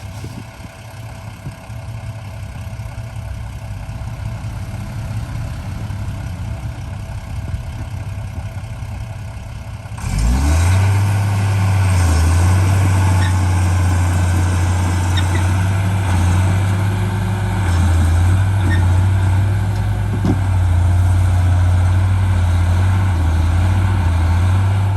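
Heavy diesel engine of earthmoving machinery running low for about ten seconds, then revving up sharply and running hard under load with a steady deep drone.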